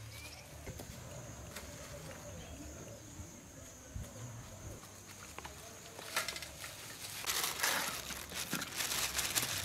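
Thin plastic bag rustling and crinkling as a handful of small fish is emptied from it into a steel bowl, over the last three or four seconds. Before that, quiet outdoor ambience with a faint steady high-pitched tone.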